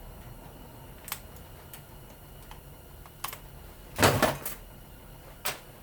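Scattered sharp clicks and a short clatter of metal knocks about four seconds in, from a fan's copper-wound motor and tools being handled on a workbench.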